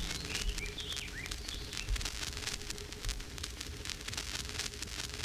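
Steady crackle and hiss with a faint steady hum underneath. A few faint short chirps come in the first second and a half.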